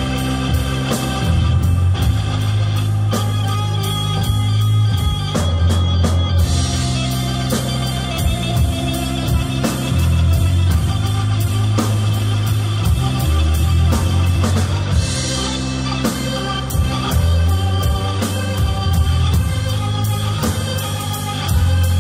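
Rock music with guitar and a steady drum beat over deep, sustained bass notes that shift every few seconds.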